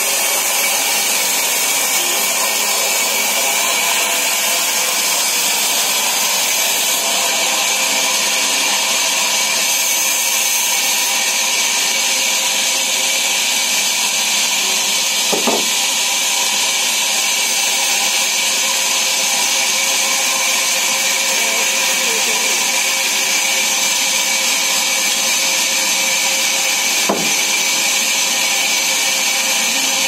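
Large sawmill band saw running steadily and cutting through a thick timber slab: a loud, even whir with a high steady whine. Two short knocks break in, one about halfway through and one near the end.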